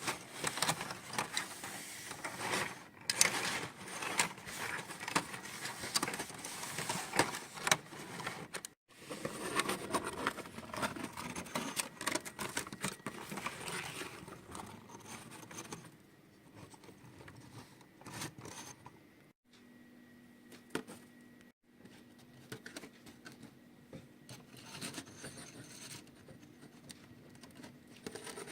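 Handling noise of small toy models: rapid small clicks, rattles and scrapes, busiest in the first half and fainter later, broken by a few abrupt silent gaps.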